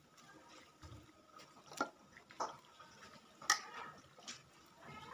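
A hand mixing raw mutton pieces in a wet green marinade in a stainless steel bowl. About five sharp, wet clicks and slaps come at uneven intervals.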